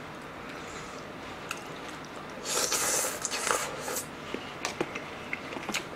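A wet slurp of Nagasaki champon noodles and broth about two and a half seconds in, lasting about a second, followed by small scattered mouth and chewing clicks.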